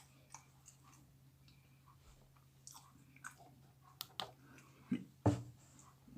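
A person chewing and biting a mouthful of boiled yam with sauce, close-miked: irregular soft mouth clicks and smacks, with a few louder ones about four to five seconds in.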